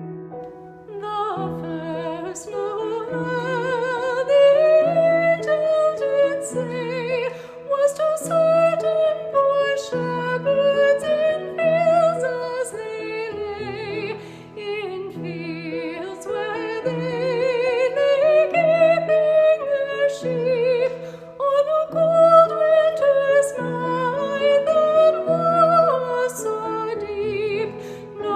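Solo high voice, soprano range, singing a slow melody with wide vibrato over a sustained piano accompaniment.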